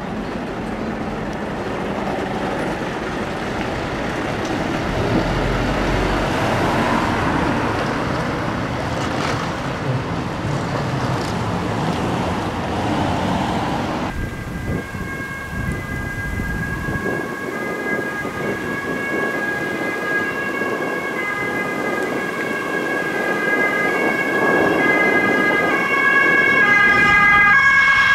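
A Scania fire truck driving past, its engine and tyres making a steady rumble. About halfway through a police car's siren takes over, a steady tone with others stepping between pitches, getting louder near the end as it approaches.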